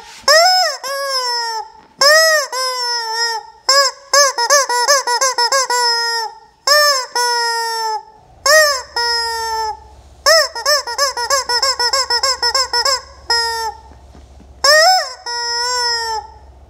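Yellow rubber chicken toy squeezed again and again, each squeeze forcing out a loud honking squawk that arches up and down in pitch, many trailing into a held, slightly falling note. The squawks come in quick runs with short pauses between.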